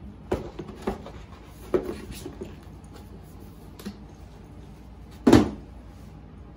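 Cardboard shoebox being handled: a few light knocks and rustles, then one louder thump about five seconds in.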